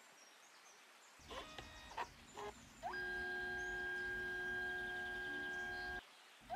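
Kodak Mini 2 Retro dye-sublimation photo printer feeding photo paper during a colour pass. A few short buzzy clicks come as the mechanism starts, then its motor whine rises and holds steady for about three seconds. It stops briefly and starts again with the same rising whine near the end.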